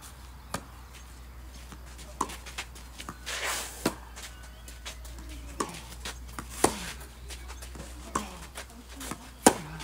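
Tennis rally on a clay court: sharp pops of rackets striking the ball and the ball bouncing, roughly every one to one and a half seconds, the loudest near the end. A short scrape of shoes sliding on the clay about three and a half seconds in.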